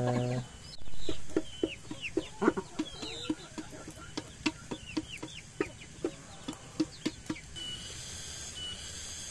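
Free-range village chickens clucking, a string of short separate calls several times a second, some with higher falling notes. Near the end a steady high insect buzz, like a cicada, comes in.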